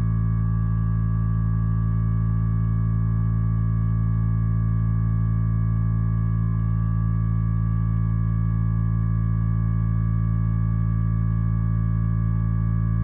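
Hyperice Vyper 2 vibrating foam roller running: a steady low motor hum with overtones, holding one pitch and level throughout.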